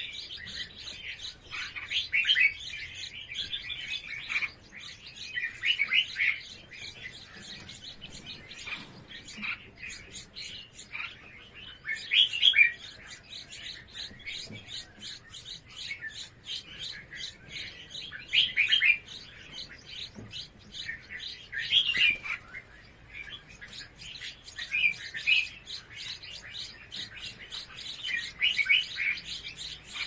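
Red-whiskered bulbul nestlings begging at the nest as the parents feed them: a fast, continuous run of short high chirps, broken every few seconds by louder bursts of chirping.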